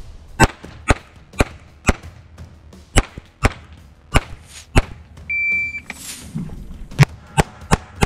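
Pistol shots from a CZ 75 TS Czechmate, a compensated competition pistol, fired in quick strings and pairs about half a second apart. A short electronic shot-timer start beep sounds about five seconds in, followed by three more fast shots.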